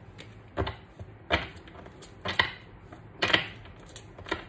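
Deck of tarot cards being shuffled by hand: about six sharp slaps and taps of the cards, spaced unevenly.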